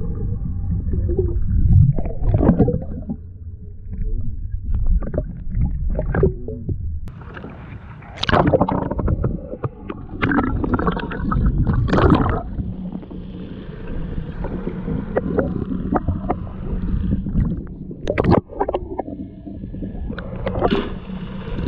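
Low, steady rumble of a fishing boat's engine and the water around the hull, broken by several sharp knocks and thumps.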